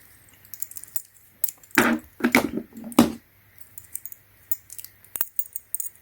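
Small metal RC hex driver and its interchangeable bits clicking and clinking as they are handled, with irregular light taps and a louder cluster of knocks about two to three seconds in.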